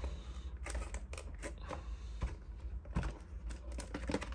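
Hands handling a cardboard collector's box, with scattered light taps, scrapes and clicks as the box is turned over and opened.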